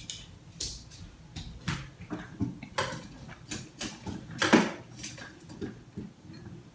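Scattered light clatters and knocks of small household objects: toy pots and utensils rummaged in a toy box, and chopsticks tapping a plate, with the loudest knock about four and a half seconds in.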